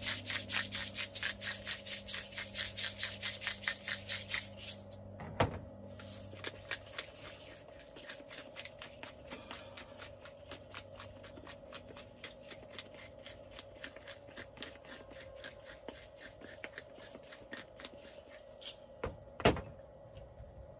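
Handheld twist spice grinder being turned over fish fillets, giving a fast, even crunching click, about five a second. It is loud for the first five seconds and fainter after that. There is a knock about five seconds in and a louder knock near the end as things are set down on the wooden board.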